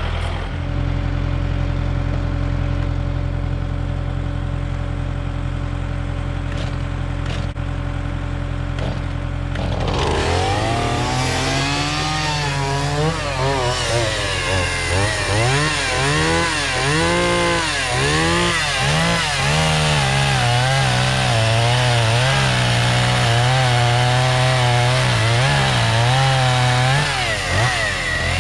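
An engine idles steadily with a few light clicks; about ten seconds in a chainsaw revs up and starts cutting firewood logs, its engine revving up and down again and again, then held at high revs through the cut, dropping briefly near the end before revving again.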